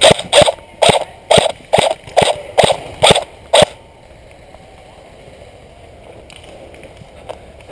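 Airsoft gun firing single shots in a steady string, about two a second, nine shots in all, stopping a little over halfway through.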